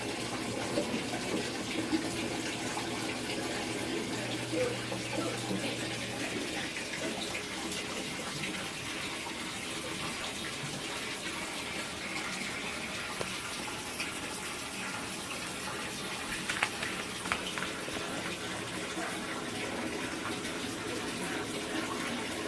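Samsung washing machine running, with water rushing steadily into its tub. A low hum runs under it for the first six seconds, and a few sharp clicks come about two-thirds of the way through.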